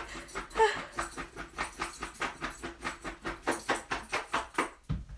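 A woman's sneeze buildup from allergies: a rapid run of short sniffs and hitching breaths, about six a second. It breaks off just before the end with a soft low bump.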